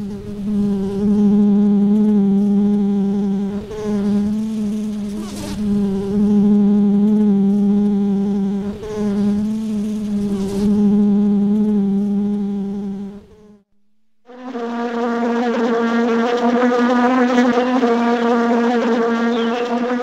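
Honeybees buzzing in a steady, loud hum with a wavering pitch. It cuts out for about a second two-thirds of the way through, then resumes slightly higher.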